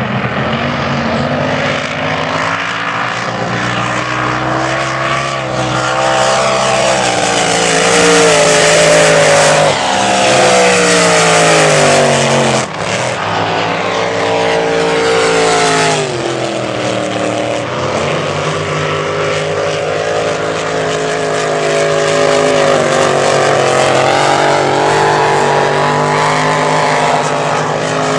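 Unlimited displacement-class race boats with supercharged engines running at racing speed, a loud, continuous engine note. Their pitch falls as boats sweep past, most sharply about halfway through.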